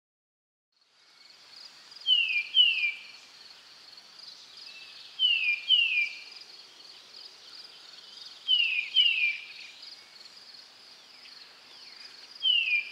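Insects trilling steadily at a high pitch, with a bird giving pairs of short, falling calls about every three seconds, four times in all.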